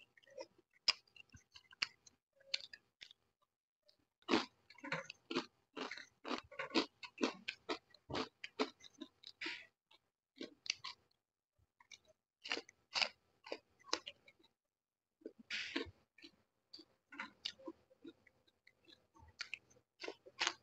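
Close-up mouth sounds of a person eating roast chicken and rice by hand: wet chewing and smacking with crunchy bites, in irregular clusters with short pauses between.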